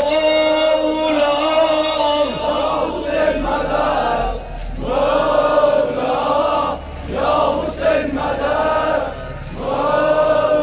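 A crowd of men chanting together in unison, a Shia mourning chant for Hüseyin, in repeated phrases about two seconds long with short breaks between them.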